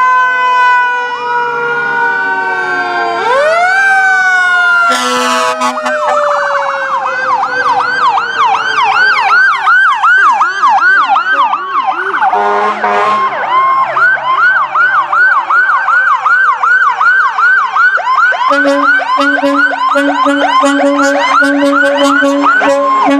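Several fire truck sirens sounding together as the apparatus pass. Slow rising and falling wails at first give way to fast yelping from about six seconds in. Near the end a low horn sounds in short, rapidly repeated blasts over the sirens.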